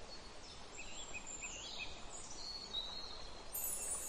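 Birds chirping over a steady hiss of outdoor background, a nature-sound bed. Near the end, high wind chimes begin ringing.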